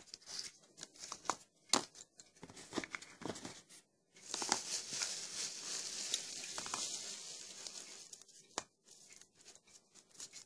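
Pencils clicking against each other and the sketchbook as they are handled and laid out, then about four seconds of steady crinkling rustle from about four seconds in, with a few more light clicks near the end.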